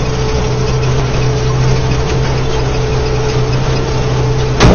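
Tractor engine running steadily under load while towing a disc harrow across a field, a constant low drone with a steady whine over it. A single sharp click near the end.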